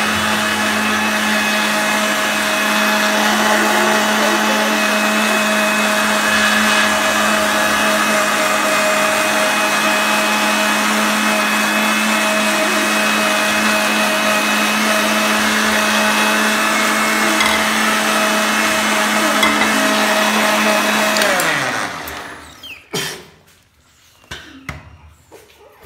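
Panasonic mixer grinder running steadily as it blends pancake batter in its jar. About 21 seconds in it is switched off, and the motor winds down with a falling whine. A few knocks follow as the jar is handled on the base.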